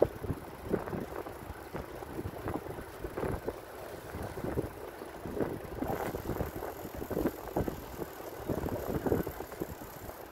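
Wind buffeting the microphone of a camera on a moving bicycle, in uneven gusts.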